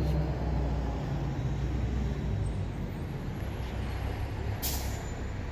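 Low, steady engine rumble of a motor vehicle, louder in the first second or two, with one short sharp hiss about four and a half seconds in.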